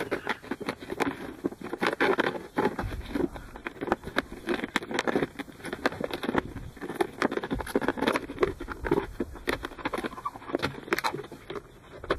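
A knife sawing through the thin wall of a plastic juice bottle, the plastic crackling and clicking irregularly as the blade works around it.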